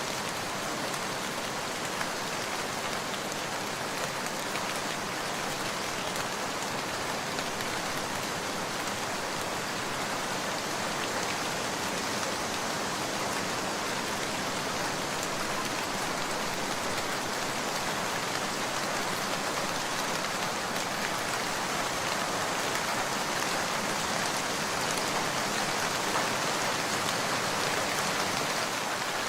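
Steady rain falling, a dense even hiss with faint scattered drop clicks.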